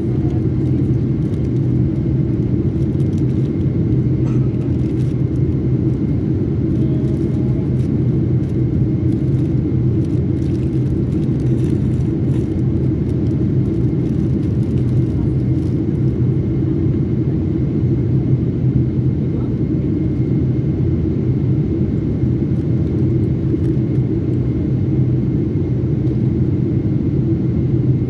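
Steady, even drone of a jet airliner in flight heard inside the cabin beside the wing engine: turbofan and airflow noise, low and unchanging, with a faint steady high tone above it.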